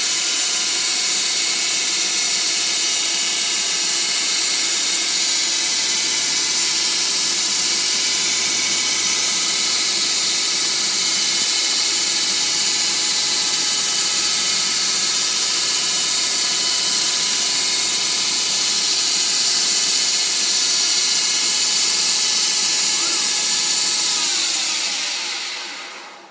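Grizzly G0602 metal lathe running steadily, a whine of several steady tones over a hiss. Near the end the pitch drops and the sound dies away as the machine winds down to a stop.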